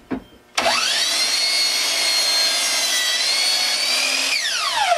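Electric miter saw run once. The motor whine climbs quickly as the blade spins up, holds steady with a brief dip in pitch about three seconds in, then falls away as the saw spins down.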